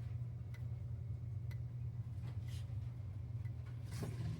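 Wheelock fire alarm strobes clicking faintly as they flash, about once a second, over a steady low hum.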